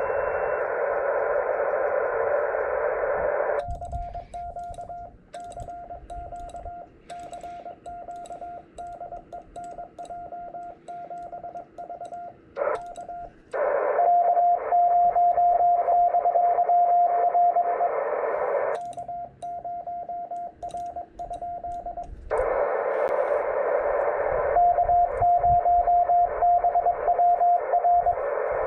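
Ham radio transceiver on 18 MHz CW: Morse code from another station coming in through band hiss, alternating with the operator's own keyed sidetone, during which the hiss drops out and the key paddle clicks. The hiss starts and stops several times as it switches between receiving and sending.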